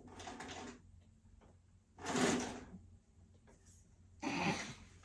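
Pneumatic presser-foot lift on an industrial cylinder-bed sewing machine releasing air: three short hisses, about two seconds apart, the middle one the loudest.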